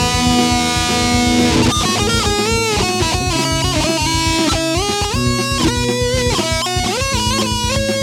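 Background rock music: an electric guitar plays a melody with sliding, bending notes over bass and a steady beat.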